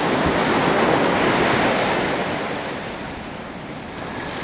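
Ocean surf washing on the beach, with wind on the microphone; the wash is louder at first and eases off about three seconds in.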